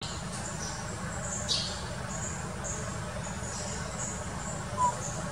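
High-pitched chirping repeating about twice a second, with a louder falling squeak about a second and a half in and a brief short peep near the end.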